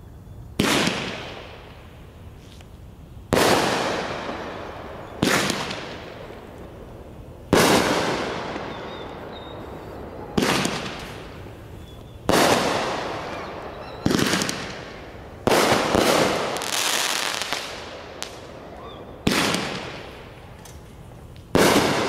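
Juggernaut multishot fireworks cake firing about ten loud shots, roughly two seconds apart and unevenly spaced. Each bang is followed by a fading crackling hiss.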